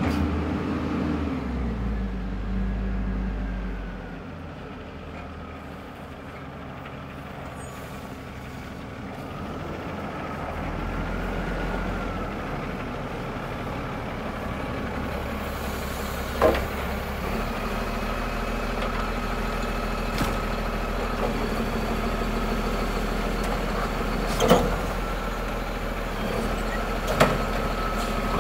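A Condor garbage truck with a Curbtender automated side-loader body, its diesel engine running as it approaches and pulls up, growing louder after about ten seconds. A faint whine runs over the engine, and four sharp clanks or pops come in the second half as the truck stops and its side-loader arm starts to reach out.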